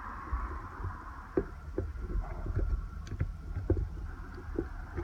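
Small plastic parts of a power window and door lock switch assembly clicking and tapping as they are pressed and fitted together by hand, about a dozen irregular clicks.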